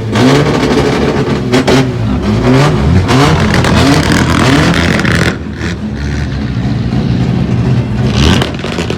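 Chevrolet Opala engine revved hard again and again, its pitch rising and falling in quick blips. About five seconds in it settles to a lower, steadier run, with one more short rev near the end.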